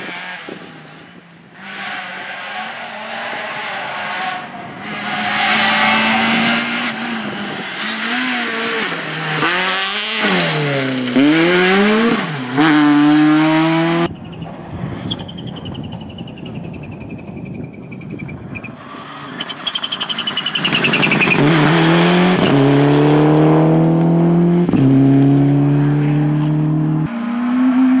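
Rally car engines at full throttle. A Peugeot 206 rally car revs hard, its revs rising and dropping sharply through gear changes and lifts. After an abrupt cut, a second rally car approaches and accelerates up through several gears, the pitch climbing and then stepping down at each shift.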